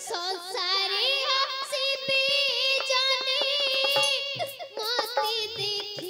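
A high voice singing a wavering, heavily ornamented melody in Odia theatre song style, over a steady held accompanying note and light, scattered percussion strokes.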